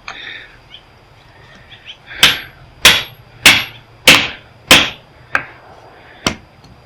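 Metal tool striking the resin-filled transformer of an old welder, trying to split it open for its copper: five hard metallic blows about 0.6 s apart, then two lighter ones.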